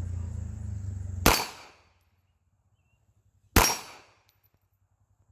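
Two pistol shots from a Taurus Spectrum .380 ACP micro pistol, about two seconds apart, each a sharp crack with a short echo.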